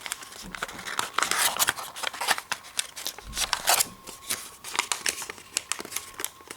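Origami paper being folded and creased by hand: an irregular run of sharp crackles and rustles.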